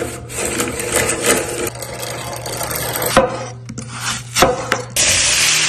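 Antique cast-iron hand-cranked apple peeler turning, its gears and blade rasping steadily as it pares the skin off an apple. About three seconds in, a knife chops through the apple onto a wooden board several times. Near the end a loud sizzle starts as apple pieces hit a hot pan.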